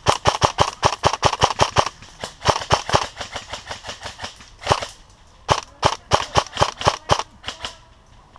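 Airsoft electric rifles firing semi-automatic and full-auto strings of sharp pops, several a second, in repeated strings with short pauses between them; the densest run is in the first two seconds.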